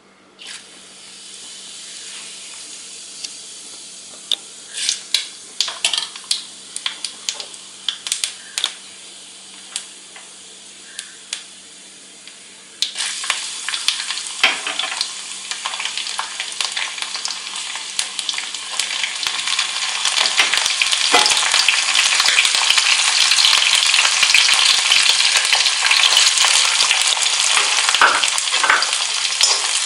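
Hot oil sizzling in an iron kadai, with fennel seeds crackling and popping in it over the first dozen seconds. About 13 seconds in, chopped garlic goes into the oil and the sizzle jumps louder, then keeps growing louder.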